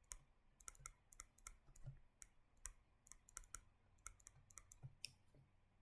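Faint, irregular light clicks, a few a second, with quiet room tone between them.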